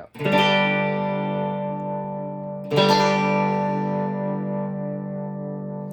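Fender Stratocaster electric guitar with single-coil pickups, strummed twice with each chord left to ring: the second about two and a half seconds after the first. It is heard through the neck and middle pickups together, the middle blended in by a tone knob in the Memphis wiring scheme.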